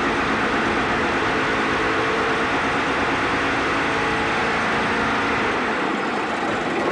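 Concrete block press running: a steady mechanical din from the machine.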